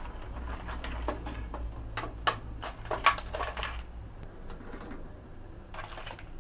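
Cooked blue crab pieces and a wire strainer knocking and clattering against a stainless steel tray as the crabs are lifted out of the blanching water, with a few sharp clicks. A low steady hum underneath stops about four seconds in.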